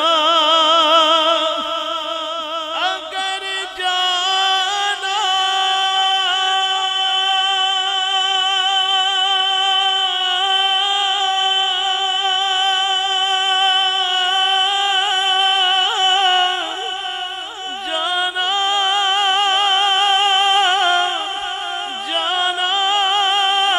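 A man singing a naat solo, drawing out long held notes with a strong wavering vibrato and sliding between pitches, with only short breaks between phrases.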